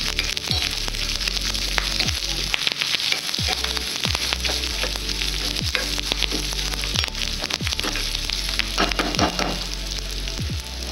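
Shallots, curry leaves and dried red chilli sizzling in hot coconut oil in a small iron tempering ladle, a steady hiss with frequent small clicks as a steel spoon stirs and scrapes them around.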